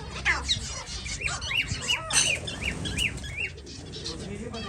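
A colony of pet finches chirping, many short calls overlapping one another continuously.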